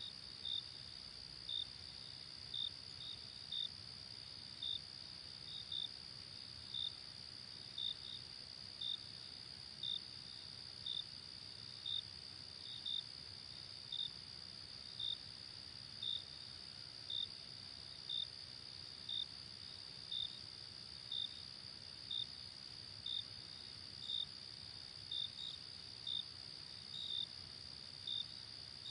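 Crickets at night: a steady, high-pitched trill with louder short chirps about once a second, now and then in quick pairs, over a faint low background hum.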